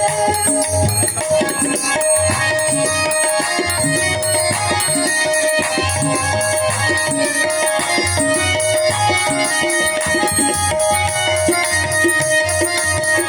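Indian folk song accompaniment: a hand drum keeps a steady rhythm under a sustained melodic line.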